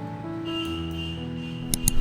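Background music with held, plucked-string-like notes, and two sharp clicks close together near the end.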